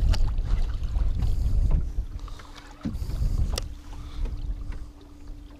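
Wind rumbling on the microphone out on open water. It eases after about two seconds, leaving a faint steady hum and a few light clicks.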